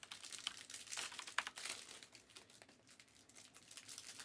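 Faint crinkling of plastic and foil trading-card packaging as cards are handled, a string of irregular soft crackles and clicks that is busiest in the first couple of seconds.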